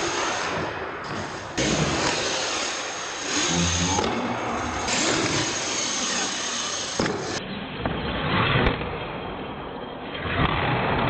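Radio-controlled monster trucks running on a concrete floor, motors whining and tyres scrubbing, with a few sharp knocks as the trucks land off wooden ramps.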